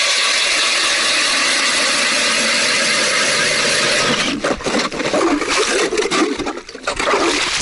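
A 150 mm ice auger boring through lake ice, a steady grinding hiss, stopping about four seconds in; then irregular scraping and knocking.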